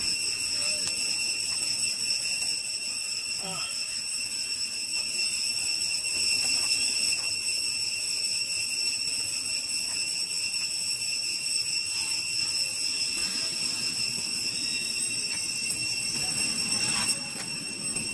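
Cicadas droning: a steady, high-pitched insect whine that holds without a break, a little quieter near the end.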